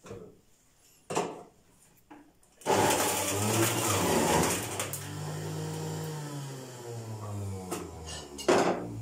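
Electric juice extractor juicing carrots: a few light knocks as pieces drop into the chute, then the motor starts about three seconds in and runs loudly while the carrots are pressed down the feed tube, its hum wavering slightly in pitch under the load. A sharp knock near the end.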